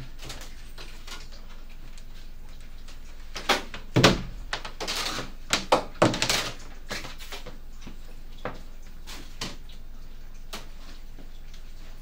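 A cluster of short knocks and thumps, the loudest about four and six seconds in, from items being handled and set down on top of a plastic reptile cage; otherwise only faint room noise with a few light clicks.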